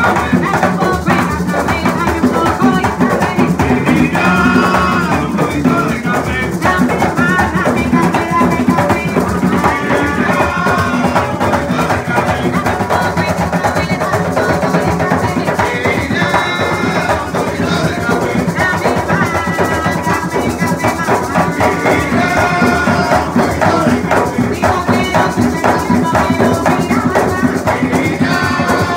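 Live Puerto Rican bomba: several barril drums played by hand in a fast, steady rhythm, with a maraca shaking over them and a lead singer's voice coming in and out.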